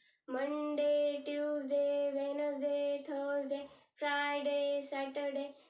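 A woman singing a children's days-of-the-week rhyme unaccompanied, in long held notes, with a brief pause about four seconds in.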